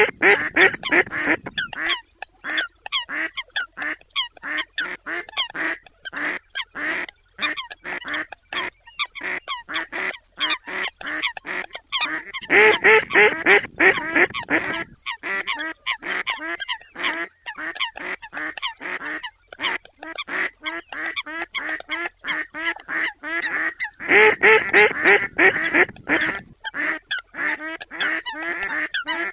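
A flock of mallards and Eurasian coots calling: rapid quacks and calls several a second. Louder, denser choruses come at the start, about twelve seconds in and about twenty-four seconds in.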